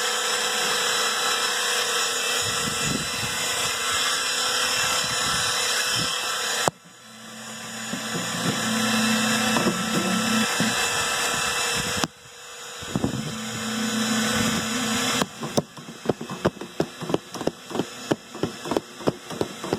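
Electric motor running steadily, cutting out abruptly twice and each time winding back up with a steady hum, then, about 15 seconds in, a fast run of sharp knocks, about four or five a second.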